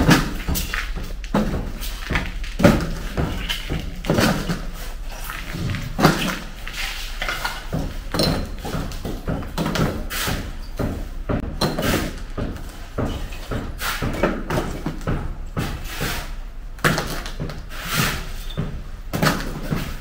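Chunks of broken concrete and plaster rubble dropped by hand into a plastic bucket, with irregular knocks and clatters about one or two a second, echoing in a bare room.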